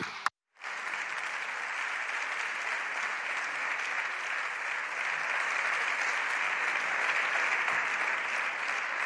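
Deputies applauding from their benches: many people clapping together in a steady ovation. It starts suddenly about half a second in, after a brief silence, and eases off slightly near the end.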